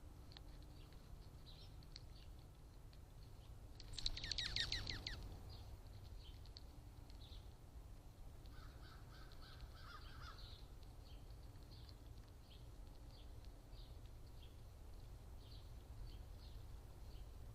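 Wild birds calling in a backyard: soft high chips throughout, one loud harsh call about four seconds in, and a quick run of short repeated notes a few seconds later.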